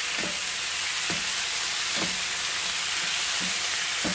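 Sliced onions and tomatoes sizzling in hot oil in a frying pan, stirred with a slotted wooden spatula that scrapes across the pan about once a second.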